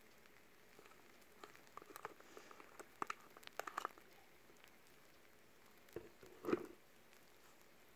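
Small sticky clicks and crackles from a squeezed plastic bottle of body lotion, then one louder wet squirt of lotion from the bottle about two-thirds of the way through.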